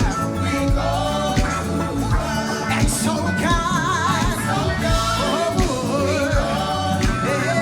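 Live gospel praise-and-worship music: a singer holding wavering, vibrato lines over a band with a steady drum beat.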